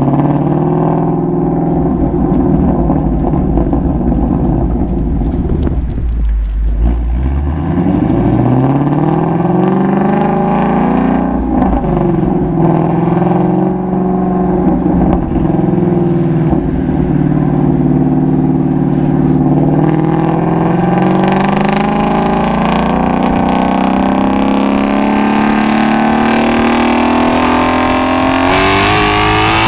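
Ford Mustang Shelby GT350's flat-plane-crank 5.2-litre V8 exhaust while driving: the engine note drops about six seconds in and climbs again, holds fairly steady, then rises steadily through the second half into a harder pull near the end.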